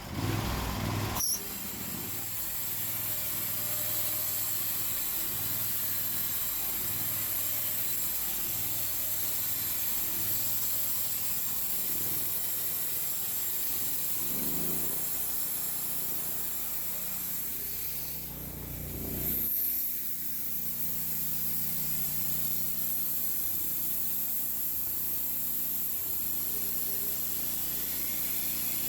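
Sawmill running and sawing an oak log into lumber: the engine runs steadily under a high whine from the blade, with a short surge about two-thirds of the way through.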